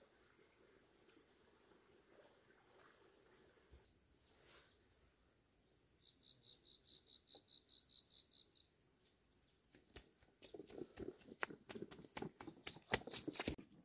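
Footsteps of a small child in sandals walking on a dirt path, irregular and growing louder from about ten seconds in as he comes close. Before them, faint steady insect trilling, then a short high chirp of about five pulses a second.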